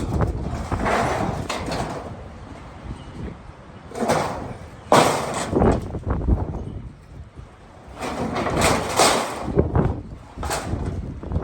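Strong gusting wind buffeting the microphone in uneven surges, the loudest about five seconds in, with a few sharp knocks or rattles among the gusts.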